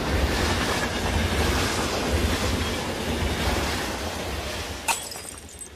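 A train passing close by at speed without stopping: a loud, steady rumble with a rushing hiss that dies away over the last couple of seconds. There is a sharp click near the end.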